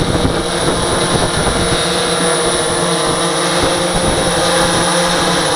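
DJI S1000 octocopter's eight electric motors and propellers hovering close by: a steady multirotor buzz with several held tones that waver slightly.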